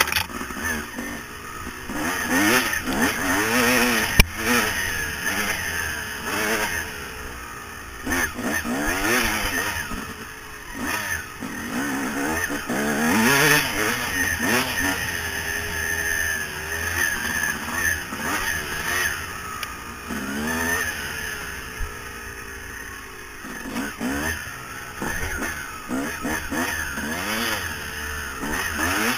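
2000 Yamaha YZ250 single-cylinder two-stroke dirt bike engine revving hard as it is ridden on a dirt trail, its pitch rising and falling again and again. A sharp knock about four seconds in.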